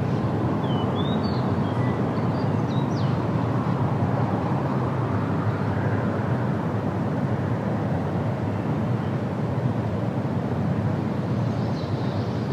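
Steady low rumble of wind buffeting the microphone in open country, with a few faint high chirps between about half a second and three seconds in.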